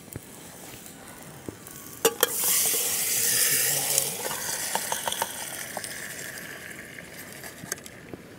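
Caldereta stew sizzling as it is stirred with a utensil: a couple of sharp clinks about two seconds in, then a hissing sizzle that swells and slowly fades, with small scattered clicks.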